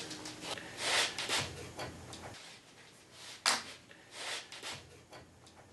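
Soft scuffs and light knocks of handling: earmuffs being picked up and put on, and hands moving the wooden sled board on the table saw's steel top, with a sharper click about three and a half seconds in.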